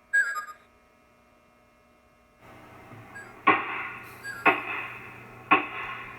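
Sound effect played back on a model railroad layout's sound system: a short electronic chirp, then, from about halfway in, sharp strikes about once a second, each ringing out over a low steady hum.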